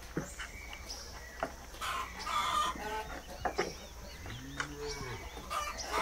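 Chickens clucking, with a rooster crowing: a run of short rising-and-falling calls, busiest in the middle, over a steady low background hum.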